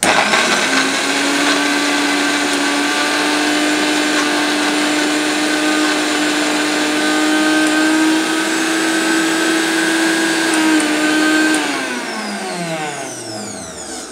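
Prestige Regal 750 W mixer grinder running its juicer jar with carrots: the motor spins up, runs at a steady pitch for about eleven seconds, then is switched off and winds down with falling pitch near the end. The carrot is stuck to the strainer wall, so the blade spins almost free and no juice comes out.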